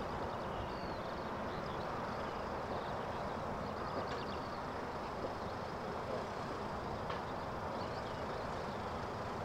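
Steady rumble of jet engine noise with a faint even hum, over which small high chirps come and go.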